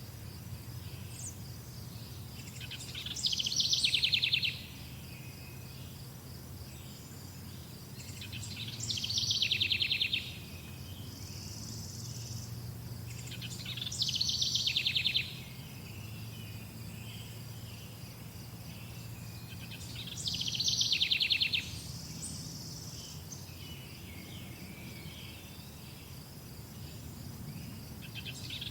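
A songbird repeating the same short song about every five to six seconds, each phrase growing louder into a fast trill, four times and starting a fifth near the end. Behind it runs a steady high buzz, like insects, over a low hum.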